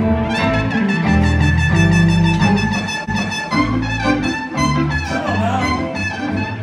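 Live band playing, with a trumpet carrying the lead over electric guitar and sustained low notes.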